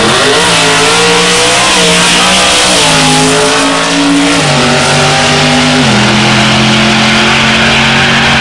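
Drag-racing Ford's engine at full throttle down the strip, climbing in pitch off the launch, then shifting up three times with a sudden drop in pitch at each shift before running steady in top gear.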